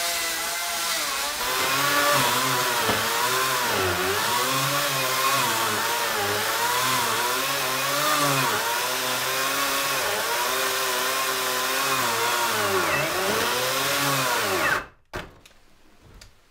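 Electric chainsaw cutting through old timber logs. The motor's pitch sags under load and recovers over and over, roughly once a second, as the chain bites into the wood. It cuts off abruptly near the end, leaving a few faint taps.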